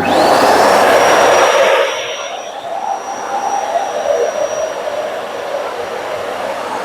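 Wet-and-dry vacuum cleaner running on a wet floor: a steady rush of suction with a high motor whine that rises at the start and then holds. The rush is loudest for about the first two seconds, then settles lower and steadier.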